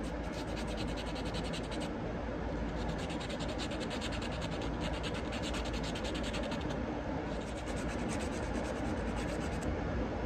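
Sandpaper rubbed by hand over a metal radiator hose clamp: quick back-and-forth scratching strokes in three spells, with short pauses about two seconds in and about seven seconds in.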